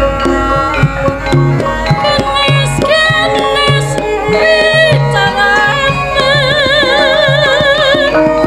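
Javanese gamelan ensemble playing, with regular kendang drum strokes under the metal and pitched instruments. A sinden's female voice comes in singing about three seconds in, with a wide vibrato toward the end.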